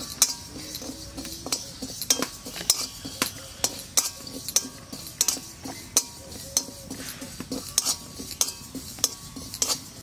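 Flat metal spatula scraping and clinking against a metal kadai, about twice a second, as it stirs cumin seeds dry-roasting in the empty pan.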